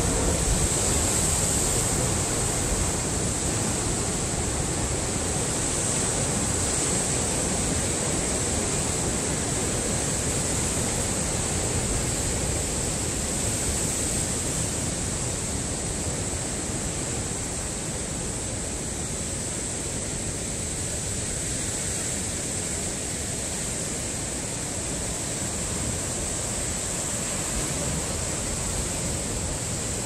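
Heavy ocean surf breaking and churning over rocks: a continuous rush of white water with no single crash standing out, growing a little quieter in the second half.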